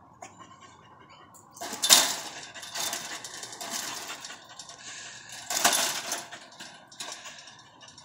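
Chain-link fence rattling and clanking as a dog jumps up and paws at it. The rattle comes in two loud bouts, about two seconds in and again near the middle, with lighter rattling between them.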